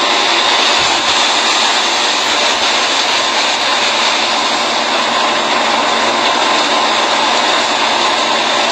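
Fire-fighting water cannon on a ship shooting a high-pressure jet of water, a loud steady rush of spray that does not change.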